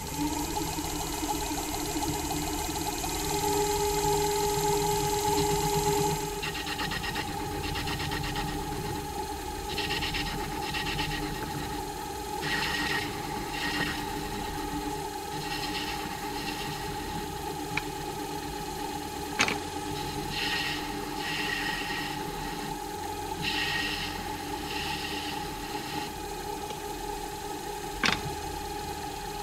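Cue-repair lathe running steadily while a lathe cutting tool is fed into a jump tip to cut it down toward the ferrule. The cuts come as paired scraping bursts every few seconds, with two sharp clicks later on.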